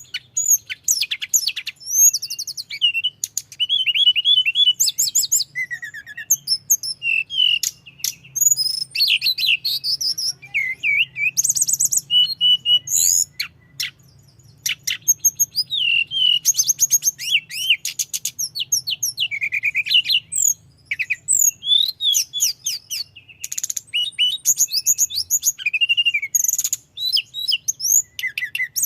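Tledekan gunung songbird singing non-stop, a rapid rolling stream of high chirps, trills and whistled slides with only brief pauses, one short lull about halfway through. A faint steady low hum runs underneath.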